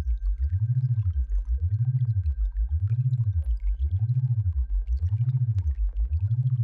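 Synthesized sound-therapy tone: a deep hum that glides up and down in pitch a little slower than once a second, over and over, with a faint steady high whistle above it.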